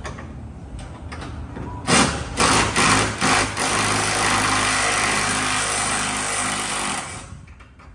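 Cordless impact wrench on a long extension, working on the exhaust bolts under a car: a few short bursts about two seconds in, then one run of several seconds that stops near the end.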